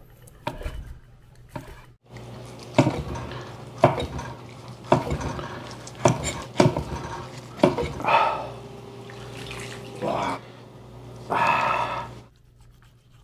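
Kitchen knife slicing through braised pork and knocking down onto a wooden cutting board, a sharp knock about once a second, with a couple of longer scraping sounds later on.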